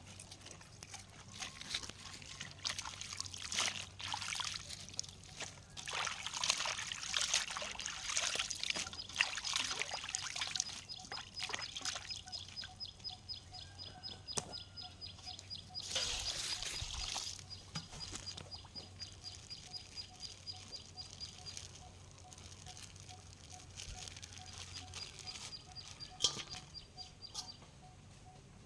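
Water pouring and splashing, with scattered clicks and knocks of handling. A fast, evenly repeated chirping runs in the background through most of it.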